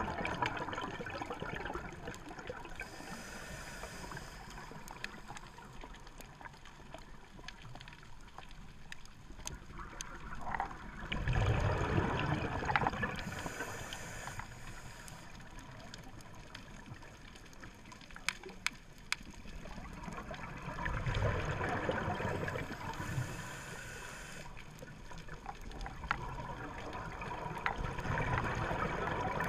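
Scuba diver breathing through a regulator underwater: a short hiss of inhaled air about every ten seconds, with louder rumbling bursts of exhaled bubbles between them, and a few sharp clicks in the middle.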